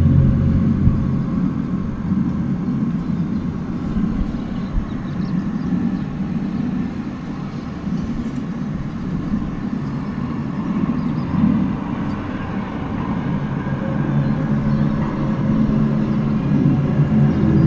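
Loud, low drone heard outside, of unknown source: a deep steady hum that turns into a rougher rumble for a while, then swells back into steady low tones near the end. It is one of the unexplained 'strange noises' heard in the sky.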